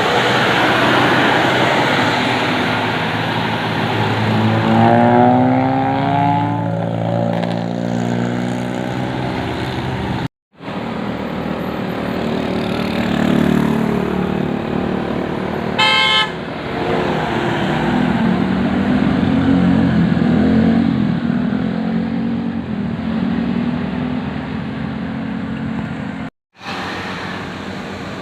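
Indonesian tour bus sounding its multi-tone 'telolet' basuri horn in musical tones that slide in pitch, over bus engine and road traffic noise. The sound cuts out abruptly twice.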